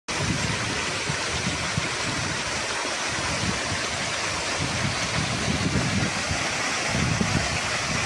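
Small waterfall pouring into a rock pool: a steady rush of falling water, with an uneven low rumble beneath it.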